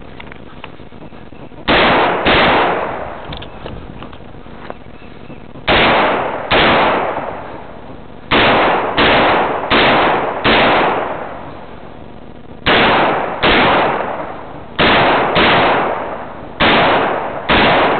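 Shotgun firing, fourteen shots in all, in quick pairs and short strings a little over half a second apart with pauses between the groups; each shot has a short echo tail.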